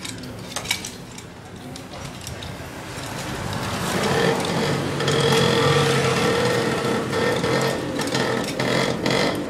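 A small engine running steadily nearby, getting louder from about three seconds in and holding a steady drone. A few sharp clicks come just before it, about half a second in.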